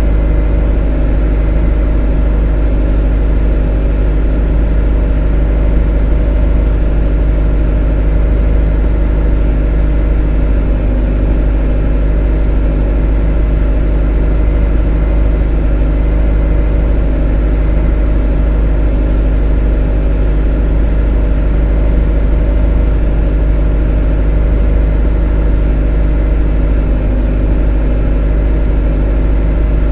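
A motor running steadily and evenly: a constant deep hum with a drone of steady tones above it, unchanging throughout.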